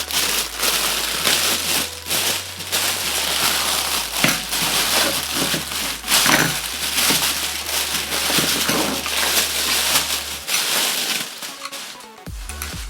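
Packing peanuts and plastic packaging rustling and crinkling while monitor stand parts are handled, with scattered clicks and knocks. It quietens near the end.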